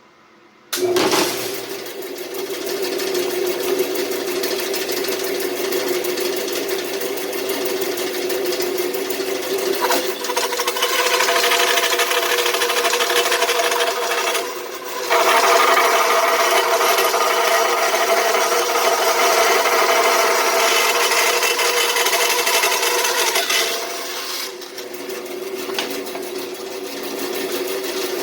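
Delta 14-inch bandsaw starting up about a second in and running with a steady hum, its 3/4-inch, 3-teeth-per-inch blade resawing a 6-inch-wide piece of walnut. The cutting noise grows louder from about ten seconds in and dips briefly midway. It eases near the end as the saw runs on more lightly.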